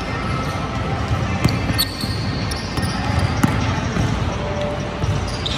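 Basketball dribbled and bouncing on a gym floor during play, a series of sharp thuds and knocks at irregular spacing.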